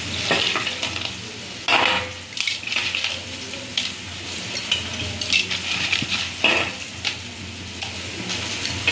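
Crab curry sizzling in a pan while it is stirred, with irregular scrapes and clinks of the utensil against the pan.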